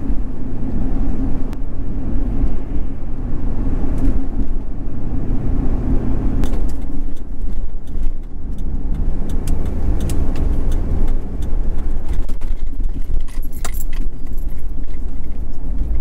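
Inside the cab of a 2003 Ford F-250 Super Duty under way: the 6.8-litre V10 and the road make a steady low drone, and the engine note shifts down about six and a half seconds in as the truck slows. The owner is pretty sure the engine's misfire is now fixed. Light rattles and clinks come in the second half, most of them near the end.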